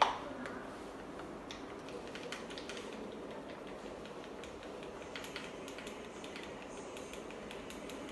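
Small plastic pepper shaker opened with a sharp click, then shaken and tapped over a mixing bowl, giving faint, irregular light clicks and rattles as pepper powder goes onto minced-chicken filling.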